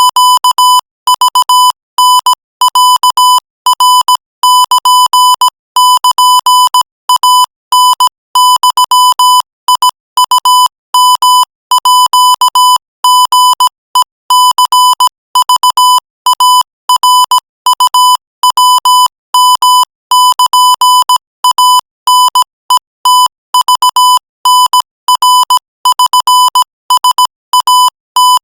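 Morse code sent at 20 words per minute as a single high-pitched beep tone, keyed on and off in a steady stream of short dots and longer dashes with brief gaps between characters and words.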